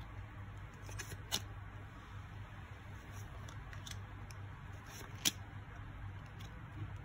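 Match Attax trading cards handled and flipped through in the hands: faint sliding and light ticks of card on card, with two sharper clicks, about a second in and about five seconds in, over a low steady hum.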